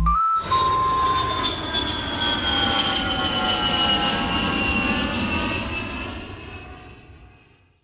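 An airplane passing by, its engine whine slowly falling in pitch over steady rushing noise, then fading away over the last couple of seconds.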